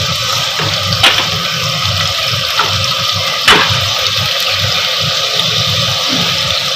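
Onions, spices and ginger-garlic paste sizzling steadily in hot oil in a clay handi, with two short clicks about a second in and midway.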